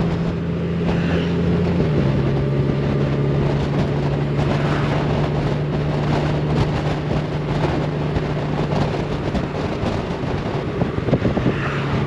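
Honda Gold Wing motorcycle's flat-six engine running at steady cruise under a steady rush of riding wind on the microphone; the engine note steps down in pitch about two seconds in, as on an upshift or easing off the throttle.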